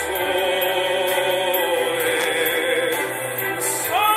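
Fireworks-show music with a singing voice holding long notes; near the end the voice slides up into a higher held note.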